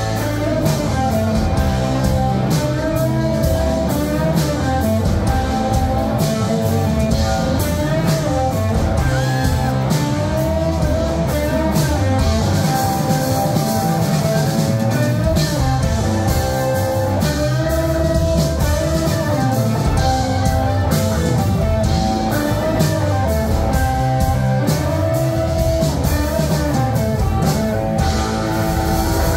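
Live rock band playing: electric guitars over bass guitar, keyboard and drums.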